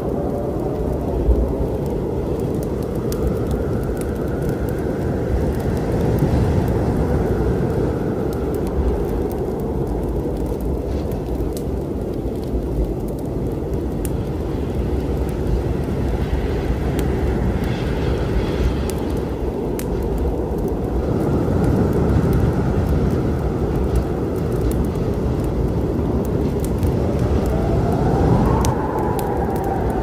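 Storm wind rumbling steadily, with howling gusts that rise and fall in pitch, over the scattered sharp pops and crackles of a wood fire.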